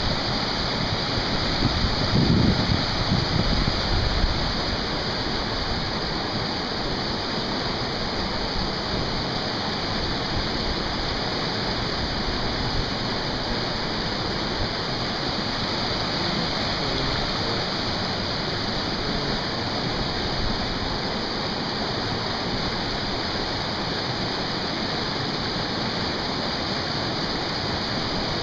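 Whitewater river rapids rushing steadily, an even wash of water noise. A louder low rumble in the first four seconds, then steady.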